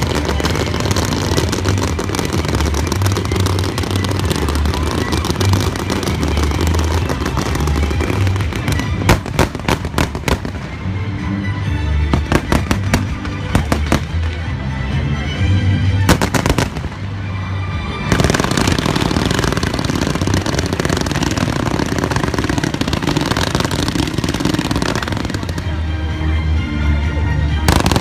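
Fireworks display: booming shell bursts and dense crackle, with a quick run of sharp reports about a third of the way in, and music playing along.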